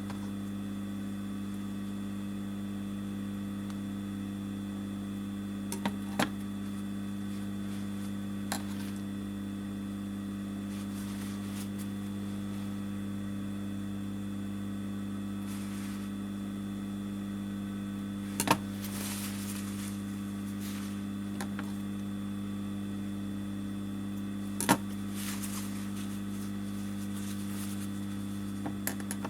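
Steady electrical mains hum, with a few sharp clicks and two brief rustles from the stitching work, about a third and about two thirds of the way in.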